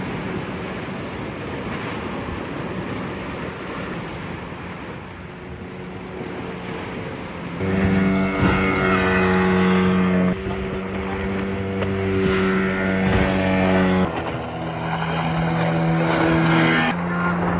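An engine running at a steady speed, louder from about halfway, with its pitch shifting down a little in steps near the end.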